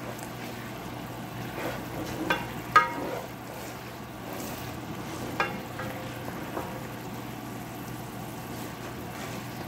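Soy sauce sizzling and bubbling in a stainless steel frying pan as a spatula stirs it, with a few ringing knocks of the spatula against the pan, the loudest a little under three seconds in.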